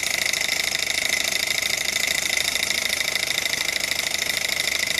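Small glass-and-metal gamma-type Stirling engine running steadily, belt-driving a small generator, with a fast, even mechanical clatter from its pistons and linkages. The metal-on-metal joints are still dry, without the graphite lubrication that makes it run quieter.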